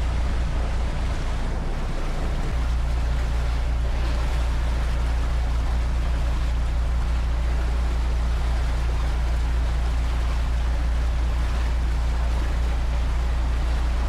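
Volvo Penta engine of a motor cruiser running steadily under way: a constant low drone, with wind and water noise rushing past, getting slightly louder a couple of seconds in.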